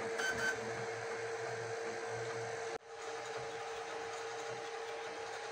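FLSUN Super Racer delta 3D printer running mid-print, a steady whine from its moving parts, briefly cut off just before the middle.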